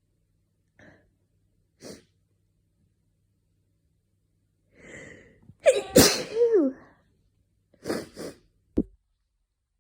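A person's single loud, voiced sneeze, preceded by a gasping in-breath and ending in a falling-pitched "choo". Two short sniffing breaths follow.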